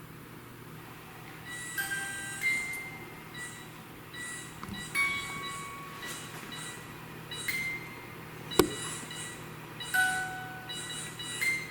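Electronic ghost-hunting detectors sounding off: short chime-like electronic tones stepping between different pitches over a run of regular, short, high beeps. A single sharp click comes about eight and a half seconds in.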